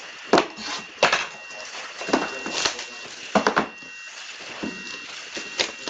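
Plastic shrink wrap being slit and torn off sealed hockey card boxes: a string of short crinkling rips and rustles at irregular moments, with the boxes handled on a table.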